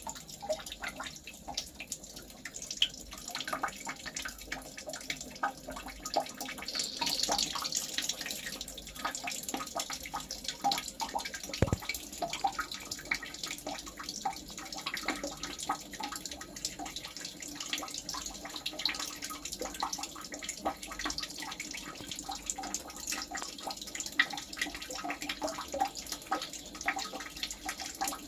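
Water trickling and dripping, with many small irregular ticks and pops; a brighter hiss comes in about seven seconds in, and there is one sharper click near the middle.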